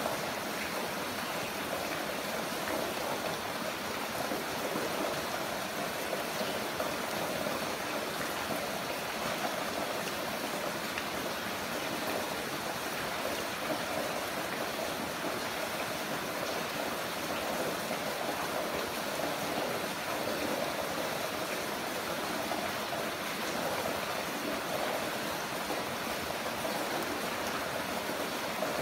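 Heavy rain falling steadily, a constant even hiss of water with no breaks or changes.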